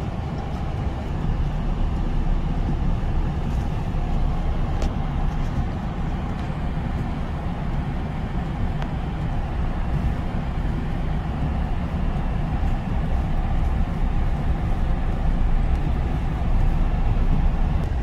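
Steady low rumble inside the cab of a Ram pickup truck driving on a snow-covered road: engine and tyre noise.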